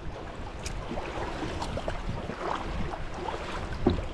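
Kayak moving through river current: water splashing and rushing around the hull, with scattered paddle splashes and knocks and one louder knock near the end.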